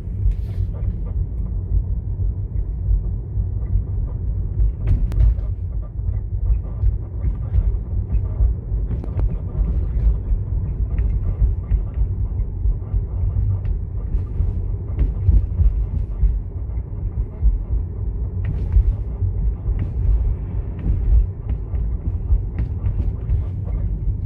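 Low steady rumble of a 2019 Tesla Model 3 Standard Range Plus in motion, with frequent short knocks and clicks from its suspension. These are suspension noises appearing after only 31,500 km.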